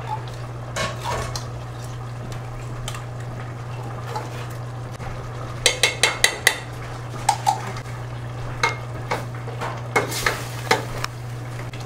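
A metal spoon tapping and scraping out a small tin of tomato paste, with a quick run of ringing metallic clicks about six seconds in, then a ladle clinking against the stainless steel pot as the chili is stirred. Under it runs a steady low hum and the sizzle of the pot on the heat.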